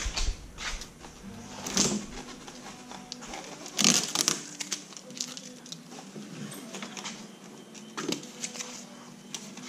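Unpacking noises from a new compact Magic Chef fridge: short rustles and scrapes as shipping tape is pulled off its door and the door is opened, with plastic wrap crinkling. The loudest scrape comes about four seconds in.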